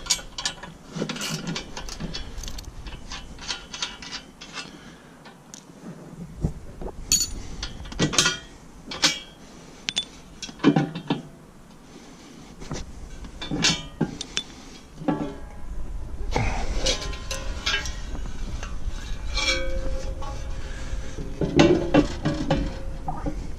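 Scattered metal clinks, clicks and knocks of hand tools working bolts on steel loader-bucket parts. A low steady rumble comes in about two-thirds of the way through.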